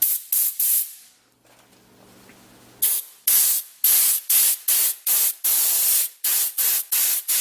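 Compressed air from the tank of a 10-gallon portable air compressor blasting out of the hose's air nozzle in short, loud hissing bursts. Three quick bursts come first, then a pause of about two seconds, then about a dozen more at a rate of two or three a second, one of them held a little longer.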